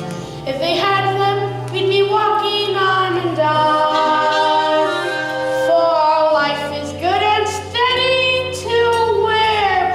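Children singing a show tune together, with long held notes over a steady musical accompaniment.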